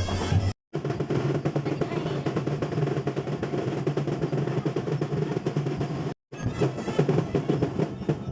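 Parade marching-band drums playing a fast, steady rhythm of snare rolls over bass drum. The sound cuts out completely for an instant twice, about half a second in and about six seconds in.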